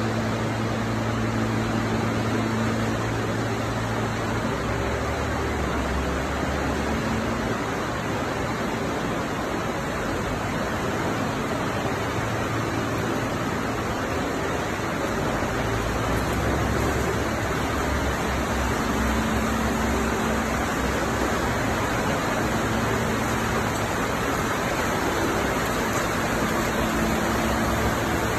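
PET bottle recycling line machinery running: a steady dense noise with a low motor hum that shifts now and then.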